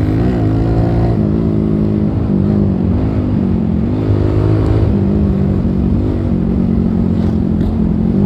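Suzuki Gixxer motorcycle engine running under way, its note rising and falling repeatedly with the throttle.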